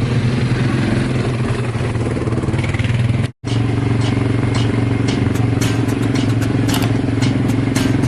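ATV engine running steadily with a constant low hum. After a brief cut about a third of the way in, sharp clicks and rattles sound over it.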